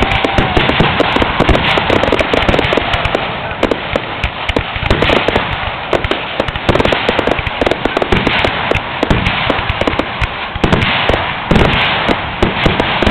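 Fireworks finale barrage: rapid, overlapping bangs and crackling shells with hardly a pause, growing heaviest near the end.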